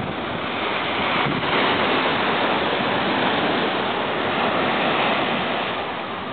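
Small sea waves breaking and washing up on a sandy beach, a steady surf hiss that swells about a second and a half in. Wind rumbles on the microphone underneath.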